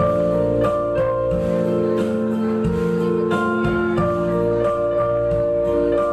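Instrumental music with no singing: sustained chords and melody notes on a keyboard-like instrument, the notes changing every half second to a second.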